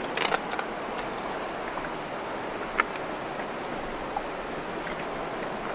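Steady rush of river water, with a few short splashes from a hooked spring Chinook salmon thrashing at the surface near the bank: a cluster in the first half-second and one more near the middle.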